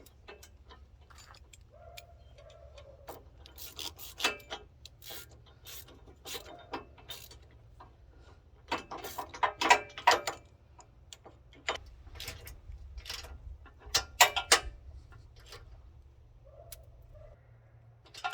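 Hand socket ratchet clicking in short runs as the nuts on the D-ring bracket bolts are tightened, with sharp metal clicks loudest about nine to ten seconds in and again around fourteen seconds.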